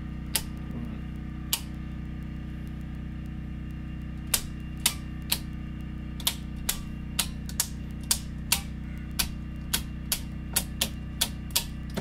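Circuit breakers in a home main panel being switched back on one after another, each handle snapping on with a sharp click: two clicks, a pause, then a run of about a click every half second, over a steady low hum.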